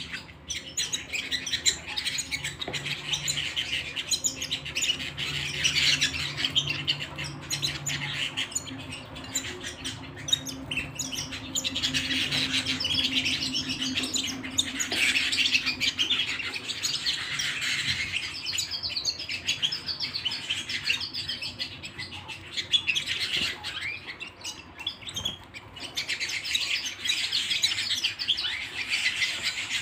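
Canary singing a long, continuous song of rapid trills and rolls, broken by a couple of short pauses, over a faint low hum.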